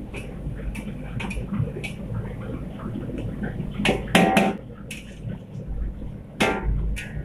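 Metal spatula scraping and knocking against a steel wok as fried rice is stir-fried and tossed, with a few sharp clanks, loudest about four seconds in and again about six and a half seconds in, over a steady low rumble.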